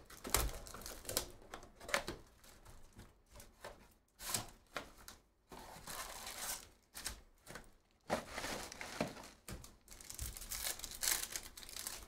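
A cardboard trading-card box being torn open, then a card pack's wrapper crinkling and ripping as it is opened: irregular bursts of tearing and crinkling.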